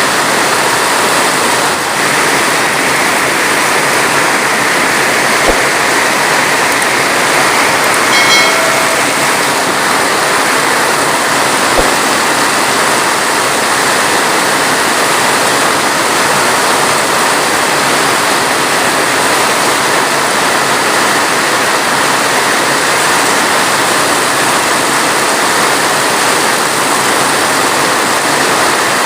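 Heavy rain falling steadily in an even, unbroken hiss. A brief, faint pitched sound rises above it about eight seconds in.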